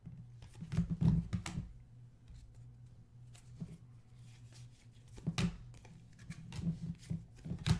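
Stack of 2016-17 Panini Excalibur basketball cards being sorted by hand, each card slid off the stack with a short papery swish. The swishes come at uneven intervals, bunched about a second in, around five seconds in and near the end.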